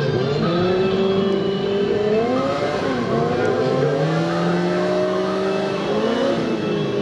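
Suzuki GSX-R1000 and Yamaha R6 sport bikes with inline-four engines, revving at the drag-strip start line. Their pitch rises and dips several times as the throttles are blipped and held high, waiting for the launch.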